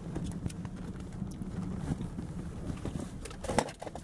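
Interior road noise of a Toyota driving slowly: a steady low rumble with scattered light clicks and knocks, and one sharper knock about three and a half seconds in.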